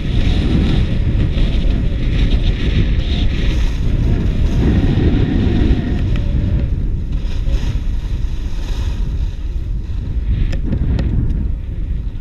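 Heavy wind rumble on the microphone of a moving skier, with skis hissing and scraping over groomed snow. The hiss fades after about halfway, leaving the lower rumble, with a few light clicks near the end.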